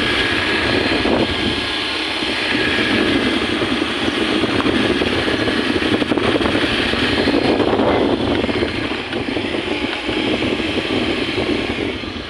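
A motorcycle riding along, its engine under heavy wind rushing over the phone's microphone, quieting slightly near the end.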